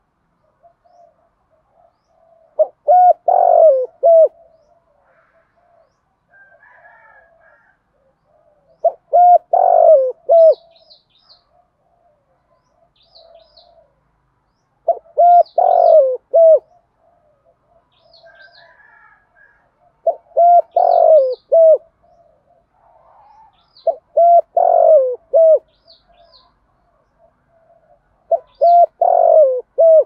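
Spotted dove cooing: a phrase of three or four deep coos, given six times at intervals of about five seconds, with softer coos between. Faint high chirps of small birds sit behind it.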